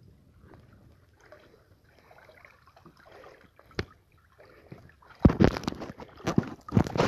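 Water sloshing and splashing as someone wades through shallow water: faint at first, then a run of loud, irregular splashes starting about five seconds in.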